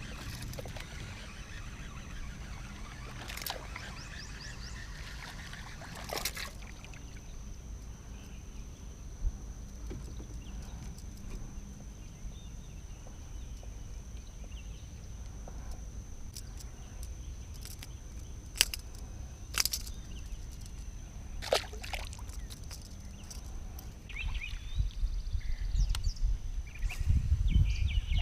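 Outdoor ambience: a steady low rumble of wind on the microphone with a thin, steady high tone and a few scattered sharp clicks; the rumble grows louder near the end.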